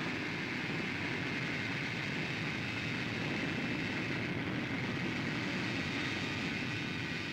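Aircraft engines running steadily: a constant rushing noise with a high, steady whine above it.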